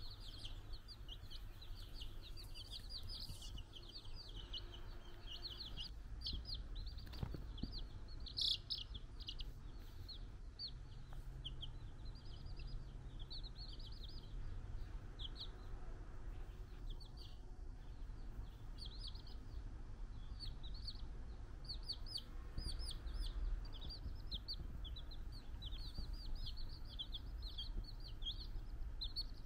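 A group of young chicken chicks peeping continuously, many short high-pitched peeps overlapping at several a second.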